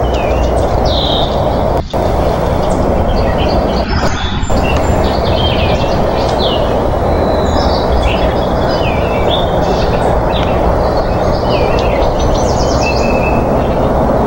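Steady loud rushing noise from the outdoor nest-cam microphone, with many short, high bird chirps and whistles over it. The sound briefly drops out about two seconds in and again around four seconds in.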